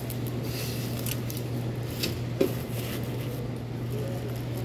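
Sunflower seeds being scooped from a tray and poured into a plastic bag: scattered short rattles, scrapes and plastic rustles, the sharpest about two and a half seconds in, over a steady low hum.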